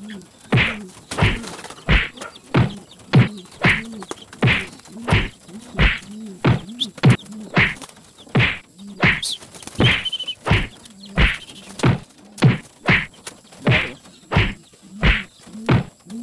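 Racing pigeons fighting on a loft floor, a rival striking with its wings: a sharp wing slap about twice a second, kept up steadily.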